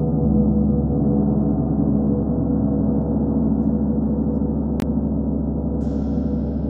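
Large hanging gongs ringing in a dense, sustained wash of many overlapping tones at a steady level. A single sharp click comes a little under five seconds in, and a brighter, higher shimmer joins about a second later.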